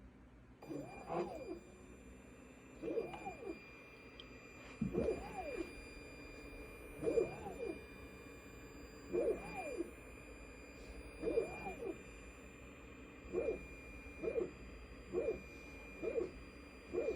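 Chauvet Intimidator Free 60 ILS moving head with a steady high-pitched whine that starts about half a second in as the lamp comes on: a fault, the unit's noise with the lamp lit. Over it come short whirs that rise and fall in pitch, about every two seconds and then about once a second near the end, typical of the head's motors moving.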